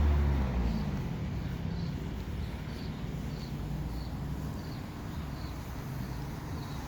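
Street traffic: a vehicle passes in the first second or so, its engine note falling in pitch as it goes by, then a steady low traffic rumble.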